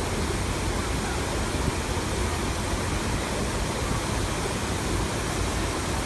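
Lincoln Center's Revson Fountain jets spraying: a steady, even rush of falling and splashing water.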